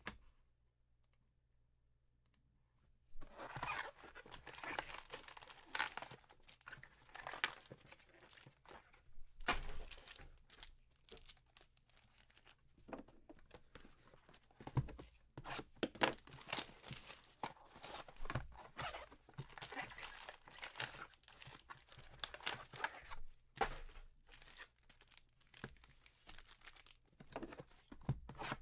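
Plastic wrapping and trading card pack wrappers being torn open and crinkled by hand, in irregular bursts of ripping and rustling that start about three seconds in.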